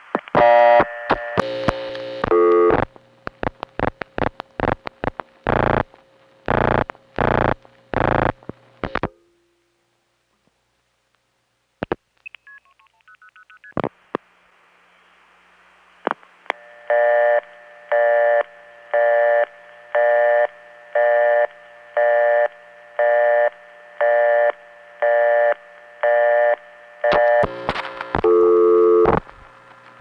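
1970s analog long-distance telephone line audio: a sped-up rotary dial's razzing clicks and signalling tones, a few seconds of silence, faint short tone chirps, then a busy-type tone beeping on and off about one and a half times a second. Dialing clicks start again near the end.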